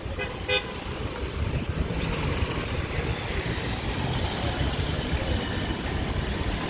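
Street traffic: a steady rumble of cars and vans driving past, with low buffeting that is typical of wind on the microphone. A brief pitched sound comes about half a second in.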